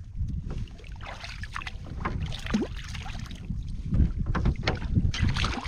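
Water splashing and sloshing around a small boat in irregular bursts, with wind rumbling on the microphone.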